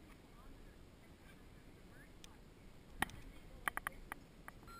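Quiet background with faint voices. About three seconds in there is a single sharp metal click, then a quick run of metal clinks with a short ring, from zipline harness and cable hardware.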